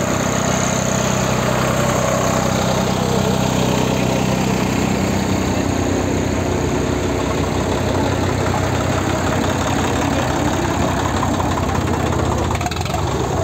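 Diesel engines of a New Holland 3630 and a Swaraj 855 FE tractor idling steadily side by side.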